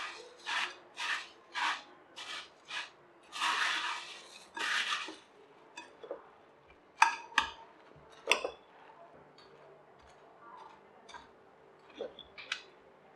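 A spoon stirring and tossing puffed rice, sev and boondhi in a bowl: a quick run of crisp rustling strokes for the first five seconds or so, then a few sharp clicks of the spoon against the bowl.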